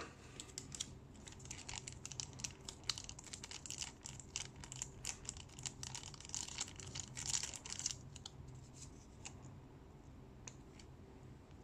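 Small plastic packaging being crinkled and torn open by hand, a dense run of crackles and tearing for about eight seconds, then a few scattered clicks.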